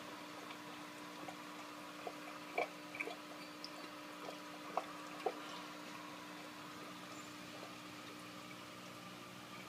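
Home aquarium filter and pump running with a steady hum and trickling water, with a few small drips about two to five seconds in.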